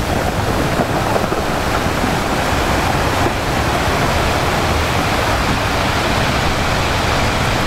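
A steady, even rush of water noise with no tone in it.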